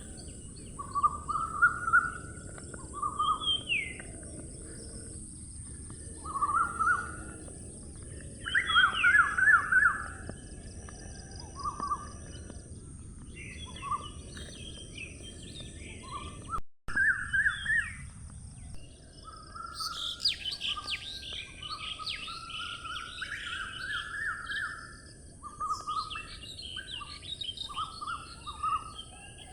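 Several songbirds chirping and singing in short, overlapping phrases, over a steady high hiss and a low background rumble of outdoor ambience. A very brief dropout breaks the sound about 17 seconds in.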